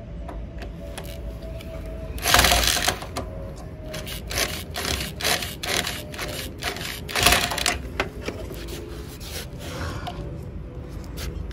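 Corded electric drill driving stainless-steel Phillips-head screws through an aluminium toerail. The drill runs in two short loud spurts, about two and seven seconds in, with a string of sharp clicks between them.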